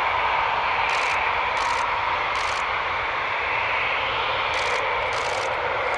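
Eurofighter Typhoon's twin EJ200 turbofans running steadily at low taxi power, a jet whine over a broad rush of exhaust noise.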